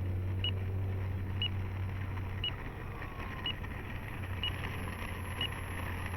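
RC transmitter beeping once a second, the countdown of its flight timer in the last seconds before it expires. Behind it is a steady noisy background with a low hum that fades out about two and a half seconds in.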